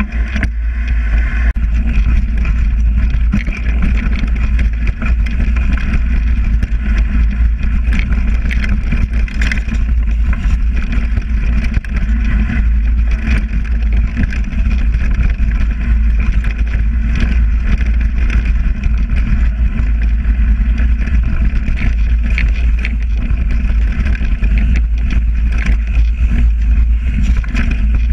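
Mountain bike rolling fast downhill over a dirt trail covered in dry leaves: a steady, loud low rumble of wind on the microphone and tyre noise, with frequent short clicks and rattles from the bike over bumps.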